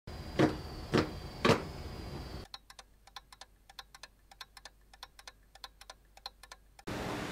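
Three loud knocks about half a second apart, then a run of faint, quick, irregular clicks from fingertips and fingernails tapping together in fidgeting hands.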